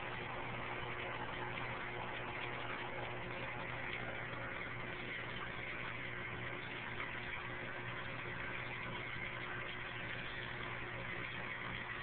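Aquarium equipment running: a steady mechanical hum under a constant even hiss, unchanging throughout.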